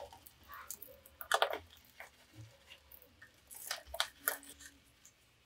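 Hands working with potting soil and a plant pot while repotting a succulent: scattered soft crunches, rustles and clicks, loudest about a second in and again around four seconds.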